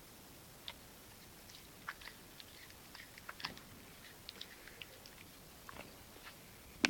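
Dachshund chewing a dried pig ear: irregular small crunching clicks and gnawing, with one sharper crack near the end.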